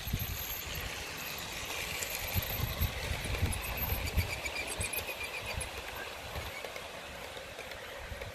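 Running noise of a Bachmann OO-gauge GWR 78xx Manor model locomotive and its coaches rolling past on garden track. It grows loudest a couple of seconds in as the train passes closest, then fades as it runs away.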